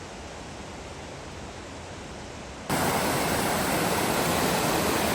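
Rushing water of a waterfall, a steady hiss that jumps suddenly to a much louder, fuller rush about two and a half seconds in.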